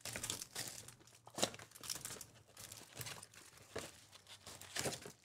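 Trading-card pack wrappers crinkling and tearing as packs of baseball cards are ripped open and handled, in a run of irregular crackles.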